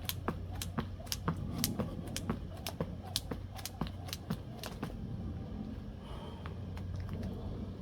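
Jump rope hitting the floor in a steady rhythm of about two to three sharp clicks a second, thinning out to a few faint ticks about five seconds in, over a steady low hum.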